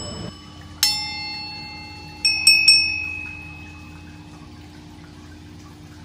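Bell-like chime sound effects of a subscribe-button animation, coming just after music stops: one ding about a second in, then a quick run of three bright dings a little after two seconds that ring out. A faint steady hum lies underneath.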